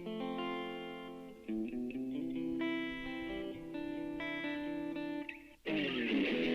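Guitar music: sustained, cleanly picked guitar chords changing every half second or so, then a sudden louder, brighter strummed chord about five and a half seconds in.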